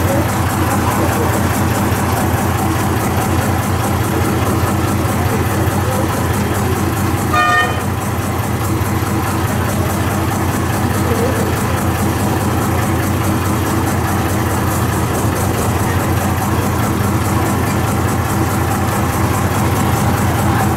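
Motorboat engine running steadily under way, a loud low drone with a fast, even beat. About seven and a half seconds in comes a short horn toot.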